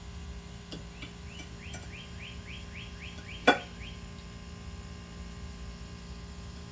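A bird calling a quick run of about ten short, falling notes, roughly three a second, over a steady low hum. A single sharp click about halfway through is the loudest sound.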